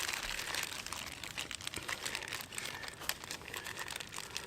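Plastic packaging crinkling and rustling as it is handled around a chicken thigh fillet, a dense run of fine irregular crackles.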